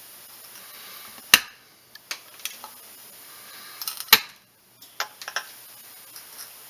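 Side cutters snipping off the protruding ends of glued pins in a gunstock: two sharp, loud snaps about a second and a half and four seconds in, with lighter clicks and taps of the tool and pieces between and after.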